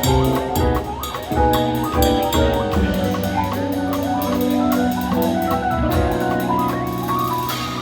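Drum corps front ensemble playing: mallet keyboards and held chords over a drum-kit groove with a fast, even cymbal tick, swelling into a wash near the end.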